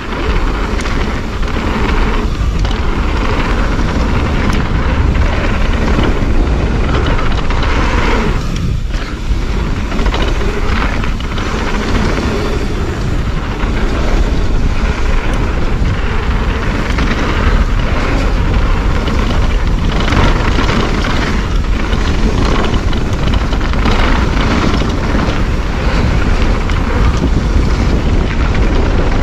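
Wind buffeting the microphone and the rattle of a mountain bike rolling over rough trail at speed: a loud, continuous rush with frequent small knocks.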